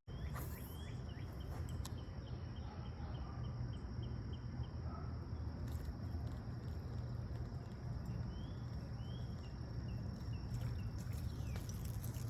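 Outdoor creek-side ambience: a steady low rumble and a steady high hum, with two runs of quick, evenly repeated high chirps, about four a second, the first starting about a second in and the second past the middle.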